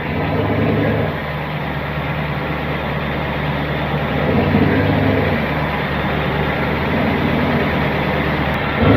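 A truck engine running steadily with a low drone, under load during a winch recovery.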